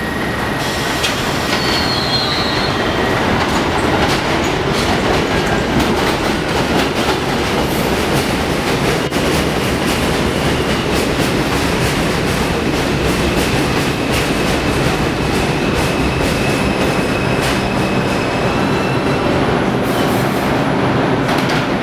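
R142 subway train pulling into the station and braking to a stop: a steady rumble with the wheels clicking over the rail joints and squealing on the rails, with a thin high steady tone in the second half.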